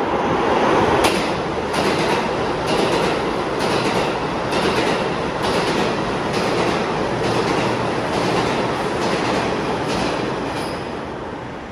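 New York City subway train running on the IND Queens Boulevard Line, its wheels clacking over rail joints about once a second over a dense rumble. The sound fades away near the end as the train moves off.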